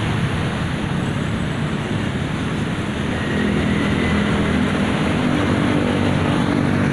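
Roadside traffic noise with a bus engine running close by; a steady low engine hum comes in and the sound grows a little louder about three seconds in.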